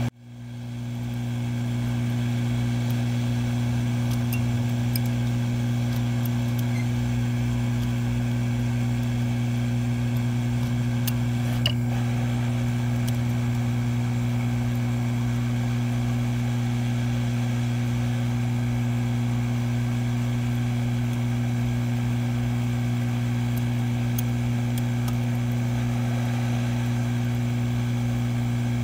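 Hot air rework station blowing onto a circuit board, a steady low hum. One faint click about twelve seconds in.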